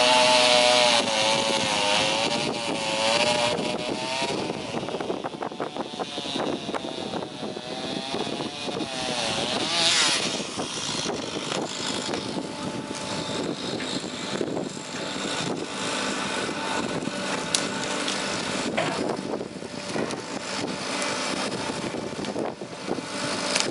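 Komatsu hydraulic excavator's diesel engine and hydraulics working under load against a tree, the engine note wavering up and down in pitch over the first ten seconds, then running more evenly with a few sharp cracks.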